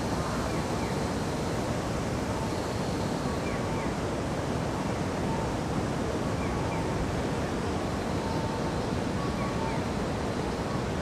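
Steady city street ambience, a constant wash of traffic and urban noise, with faint short beeps and chirps recurring every second or two.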